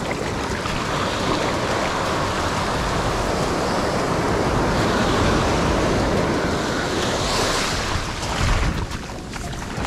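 Ocean surf breaking and washing up a sandy beach: a steady rushing wash that swells and ebbs with each wave, with a louder hissing surge as a wave breaks about seven seconds in.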